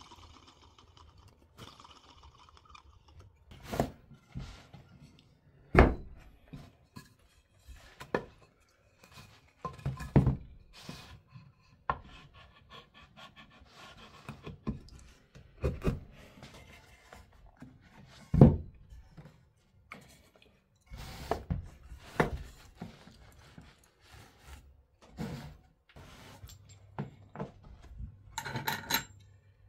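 Woodworking handling noises: irregular wooden knocks and thunks with rubbing in between. The loudest knocks come about six seconds in and about eighteen seconds in.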